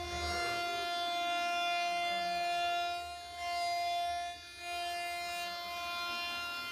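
CNC router spindle milling aluminium plate with a two-flute BAP300R cutter holding PCD inserts: a steady high-pitched cutting whine made of several even tones, dipping briefly twice near the middle.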